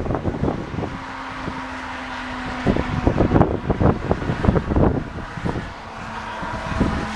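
Gusty wind buffeting the microphone, with a distant outdoor tornado warning siren heard faintly as a steady tone for about two seconds, then again near the end at a slightly lower pitch.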